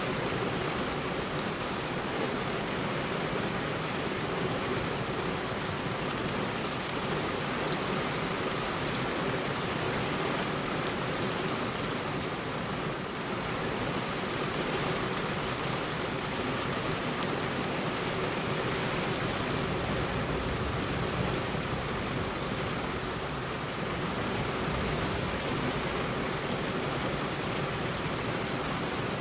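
Heavy rain falling steadily on a road: an even, unbroken hiss.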